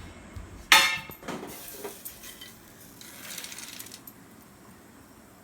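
Metal kitchenware clanking: one sharp, ringing clang under a second in, then a couple of lighter clinks and a soft rustle.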